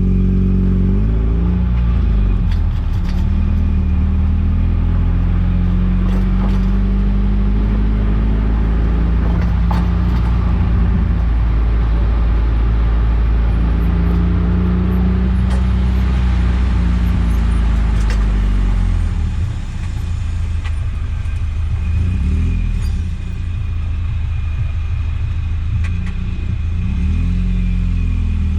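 Eunos Roadster's four-cylinder engine running while the car is driven, its note climbing and dropping back several times as it accelerates and changes gear. A few light clicks from the car sound over it.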